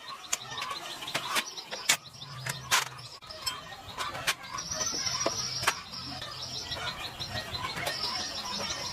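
Birds chirping in a fast, even trill, with sharp clicks and knocks scattered throughout and a low steady hum underneath.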